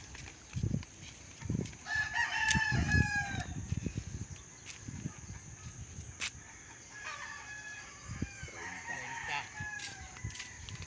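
A rooster crowing twice, once about two seconds in and again a little past the middle, over footsteps on a concrete path.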